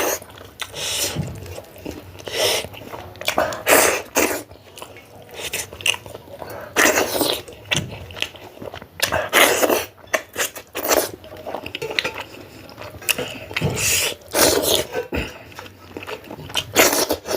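A person eating close to the microphone: irregular wet chewing, mouth smacks and sharp breaths, coming every second or so.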